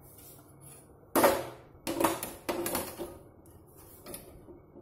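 Metal baffle filter of a kitchen chimney hood clanking as it is pulled out and handled: one sharp clank about a second in, then several lighter knocks.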